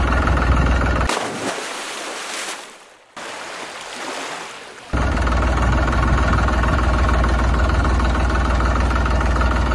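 Heavy water gushing from a tubewell outlet pipe into a concrete tank, over a steady low rumble. The sound drops to a quieter, thinner rush about a second in, then comes back at full level about five seconds in.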